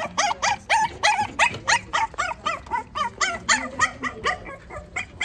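Small dog yapping in a quick, high-pitched run of about four yaps a second, each yap bending up and back down in pitch.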